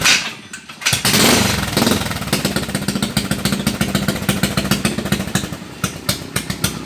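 Yamaha SR400's single-cylinder four-stroke engine with a custom exhaust starting up: it catches about a second in, revs briefly, then settles into a steady idle of regular exhaust pulses that turn sharper near the end.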